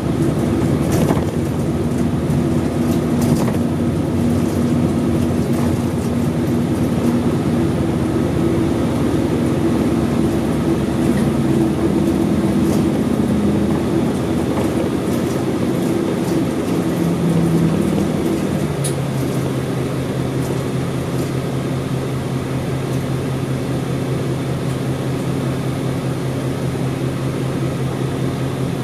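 Isuzu Erga city bus's V8 diesel engine heard from inside the cabin as the bus drives along, running steadily; about nineteen seconds in its note drops to a lower, steady hum as the bus eases off.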